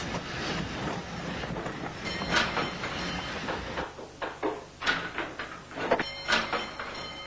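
A train running with a steady rumble and clickety-clack that fades out about four seconds in, followed by a string of sharp clunks and knocks.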